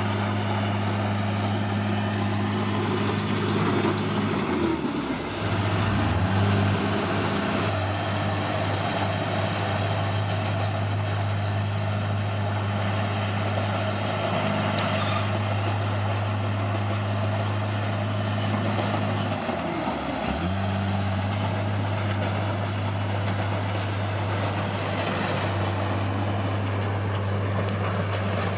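Caterpillar D6R bulldozer's diesel engine running steadily. Its note drops briefly and picks back up twice, about five seconds in and again about twenty seconds in.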